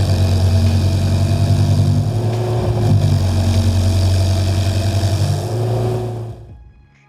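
Carlton SP6016 stump grinder's 54 horsepower Kubota engine running steadily under light load, fading out near the end.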